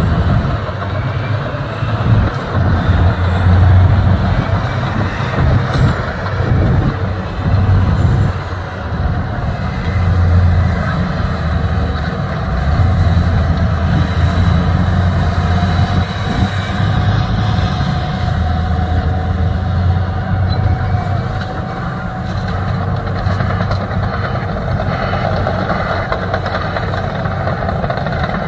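Heavy diesel engines of a Volvo EC480D excavator and a MAN tipper truck running steadily during loading. Over the first several seconds there are loud surges and rattles as earth from the bucket drops into the truck's steel body.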